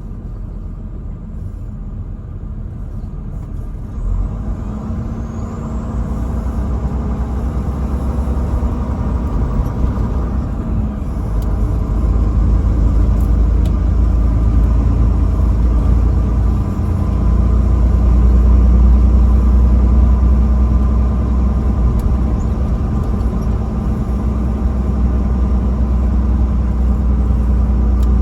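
Motor vehicle engine running with a steady low rumble, growing louder over the first dozen seconds and holding there.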